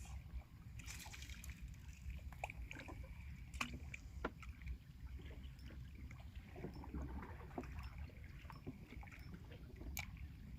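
Water sloshing against a small fishing boat's hull, with scattered small clicks and knocks over a steady low rumble.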